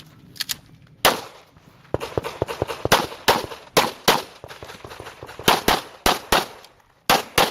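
Pistol gunfire during a practical-shooting stage: quick pairs and short strings of shots, several a second, with brief pauses between strings and a short lull near the end, each shot ringing briefly.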